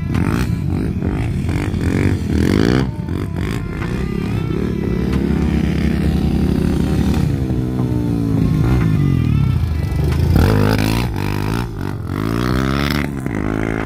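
Several ATV engines running and revving, their pitch rising and falling, with music playing alongside.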